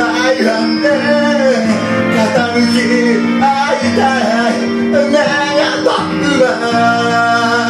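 A man singing karaoke into a handheld microphone over a backing track.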